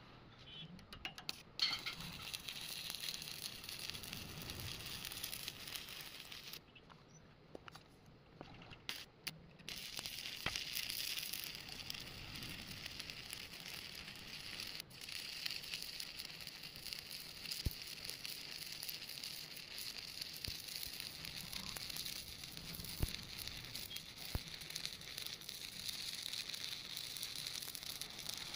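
Electric arc welding crackling and sizzling. It stops for a couple of seconds about a third of the way in, then restrikes with a few short sputters and runs on steadily.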